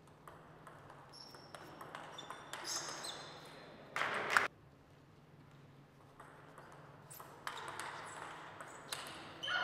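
Table tennis rally: the ball clicking off rubber-faced rackets and the table, each hit with a short high ping, in an echoing hall. A brief louder burst comes about four seconds in and another near the end.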